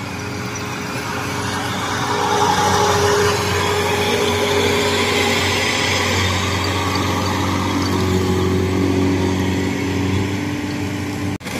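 Rice combine harvester engines running steadily while the machines cut rice: an even engine drone with mechanical whirring over it.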